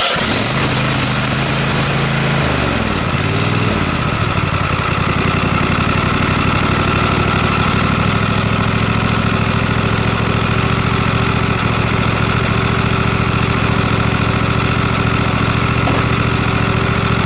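A Cub Cadet lawn tractor's 22 HP Kohler 7000 series V-twin engine fires up on its newly replaced starter. Its speed rises and falls for the first few seconds, then it settles into steady running.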